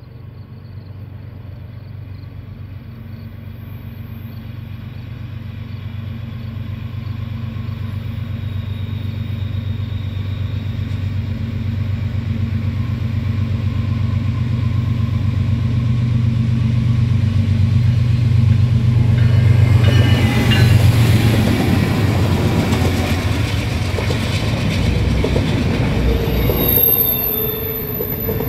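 Two GE diesel-electric freight locomotives, a CN ES44DC leading and a BC Rail C44-9WL trailing, approach under power. Their steady low engine drone grows louder for about twenty seconds until they pass. The double-stack container cars then roll by with wheel and rail noise and a high wheel squeal near the end.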